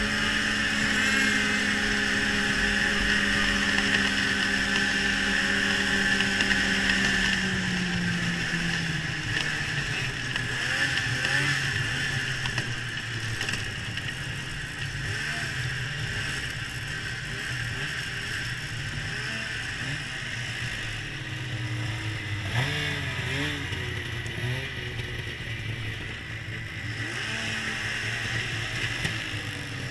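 Polaris XLT Special snowmobile's two-stroke engine running at speed, then easing off to lower, uneven revs about seven seconds in, with a few short throttle blips later.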